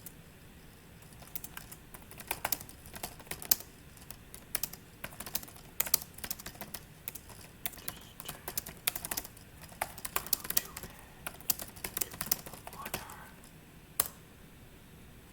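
Typing on a computer keyboard: irregular runs of keystroke clicks, ending about 14 seconds in with one sharp, louder keystroke.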